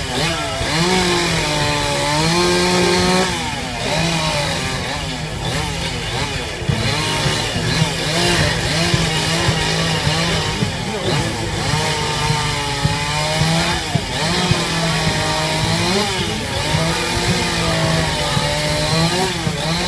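Chainsaw carving wood, its engine revving up and dropping back over and over as it cuts.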